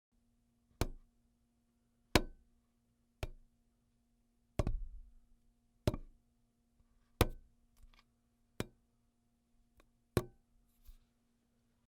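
An empty bottle being struck about eight times, roughly a second or so apart, each hit a sharp knock with a short ring, with a few lighter taps in between.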